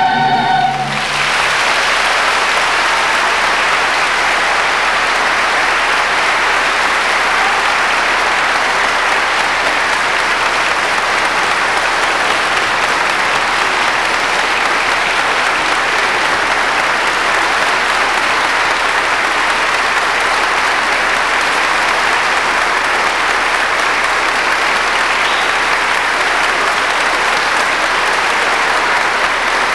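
The last held chord of the choir's music ends about a second in, then an audience applauds steadily.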